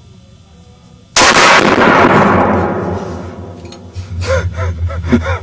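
A single loud rifle shot about a second in, fired in a small indoor range, ringing out and dying away over about two seconds. A man's short bursts of laughter begin near the end.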